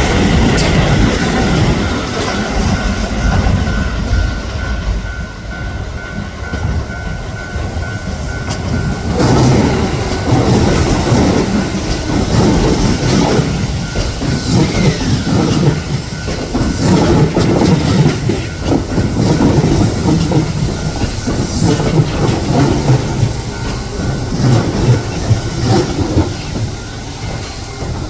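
Keihan 8000 series electric train running through a station. A steady whine is heard for the first third, then its wheels clatter rhythmically over the rail joints.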